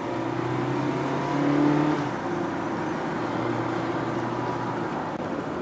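Honda Freed+ Hybrid heard from inside the cabin while driving: a steady engine hum over road noise, the hum shifting in pitch about two seconds in.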